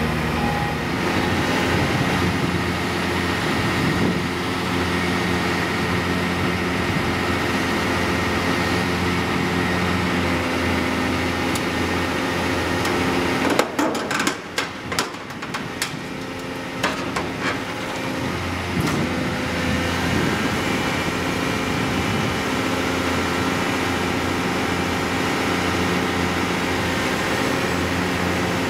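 Hitachi Zaxis ZX470-3 high-reach demolition excavator's diesel engine running steadily. For a couple of seconds in the middle the engine sound drops away and a run of sharp knocks and clatters is heard, with a few more knocks shortly after, before the steady engine returns.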